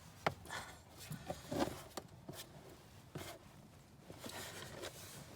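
Hard plastic clicking, knocking and creaking as a car's glove box is handled and its side tabs are squeezed in to release it, with a soft rustle near the end.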